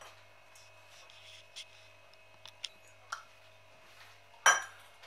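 Hand mixing damp rice flour in a stainless steel bowl: faint rustling with a few light clicks, then near the end one sharp, ringing clink against the steel bowl.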